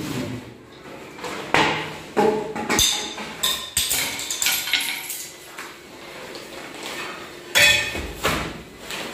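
Irregular sharp knocks and clatter of kitchen utensils, a few a second, with a louder burst of knocks near the end.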